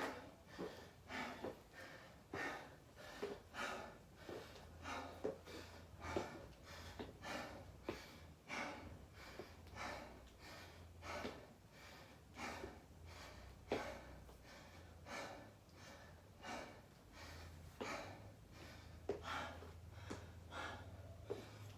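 A man breathing hard and fast while recovering from a set of burpees, in short, even breaths about every two-thirds of a second.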